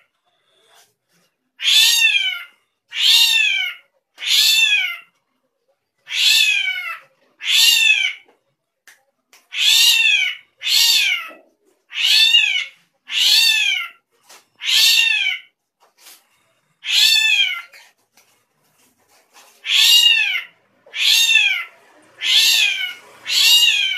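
Caged drongo giving a long series of cat-like mewing calls, about fifteen in all, each roughly a second long with a pitch that arches and drops at the end, the 'strange sound' of this bird.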